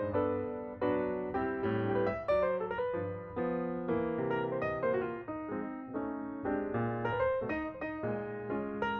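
Background piano music: a quick run of struck notes over a bass line.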